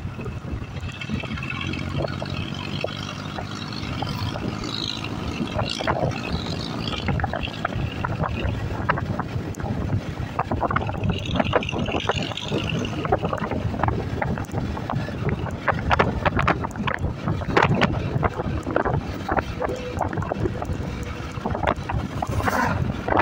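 Wind buffeting the microphone of a moving Yamaha scooter, over the steady low hum of its engine, with frequent short crackles from the gusts.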